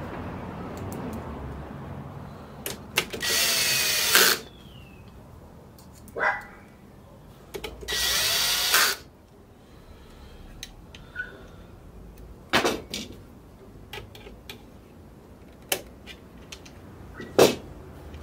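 Cordless drill-driver running in two bursts of about a second each, working screws on the metal frame of a copier fuser unit. Sharp clicks and knocks of small metal parts being handled follow, the loudest near the end.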